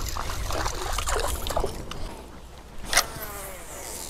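Topwater propeller lure being jerked across the river surface: a run of sharp splashes and gurgles, one with each pull of the rod, every half second or so. About three seconds in comes one loud sharp swish, followed by a brief falling whistle.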